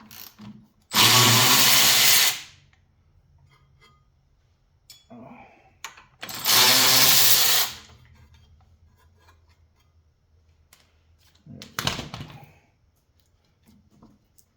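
Cordless power driver with a socket running in short bursts, spinning out the bolts that hold a snowblower's recoil starter: two loud runs of about a second and a half, then a shorter one near the end, with small tool clicks between.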